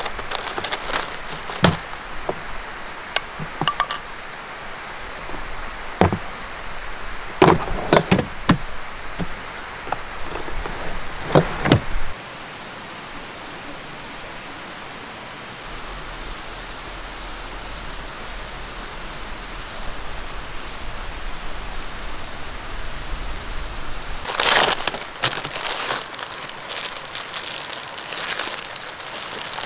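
Packaged food and bottles being handled in a plastic tool-case drawer, making a series of knocks and clicks. After a quieter stretch of steady outdoor background, a plastic snack wrapper is torn open and crinkled near the end.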